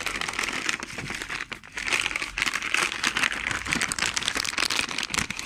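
Continuous crinkling and rustling made of many small crackles.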